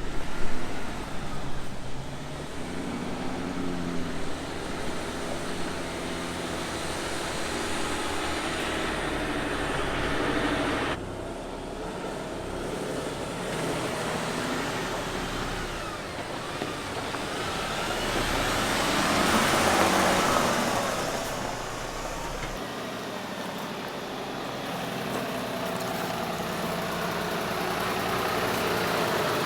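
Mercedes-Benz Arocs truck's diesel engine running as the truck drives, with tyre and road noise. The sound changes abruptly about eleven and twenty-two seconds in, and a broad rushing noise swells and fades around twenty seconds in.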